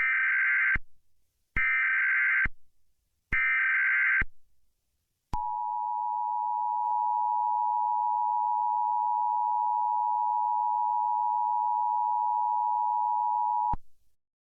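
Emergency Alert System tones: three short screechy bursts of digital header data, about a second each, then the two-tone EAS attention signal held steadily for about eight seconds. Together they announce an incoming Amber Alert (child abduction emergency).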